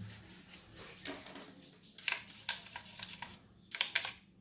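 Light handling noises: scattered clicks, taps and rustles as a graphics card and small tools are handled, with a cluster about halfway through and a couple of sharper clicks near the end.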